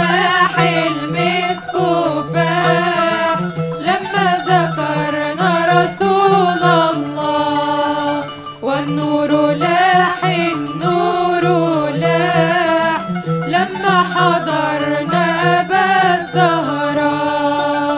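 A women's vocal group singing a devotional Arabic nasheed in praise of the Prophet, voices together in a wavering melody over steady instrumental accompaniment.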